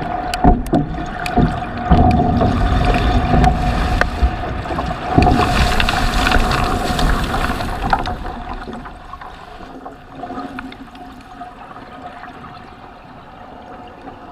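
Water sloshing and gurgling around the tugboat as it goes down, with scattered knocks and a steady hum. It is loud at first and fades away about halfway through.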